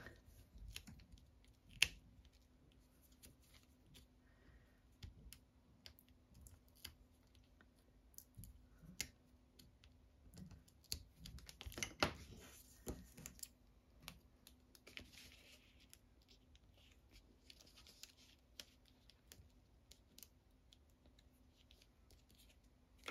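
Faint, scattered small clicks and taps of paper crafting by hand: die-cut paper pieces being lifted with a precision pen, set down and pressed onto cardstock on a craft mat. A faint steady hum lies beneath.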